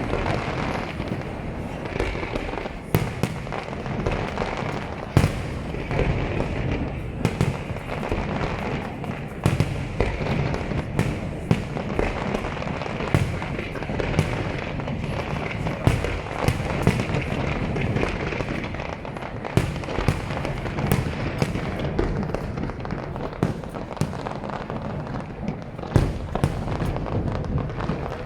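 Fireworks display: many sharp bangs and pops at irregular intervals, several a second, over a continuous background rumble.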